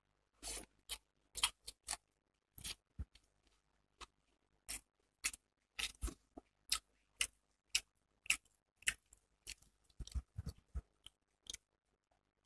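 Close-up eating sounds of rice and hilsa curry eaten by hand from a steel plate: irregular short wet smacks and clicks, about two a second.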